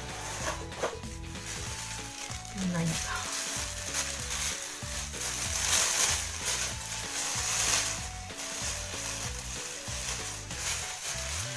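Thin clear plastic bag crinkling and rustling as hands open and handle it, loudest around the middle, over background music.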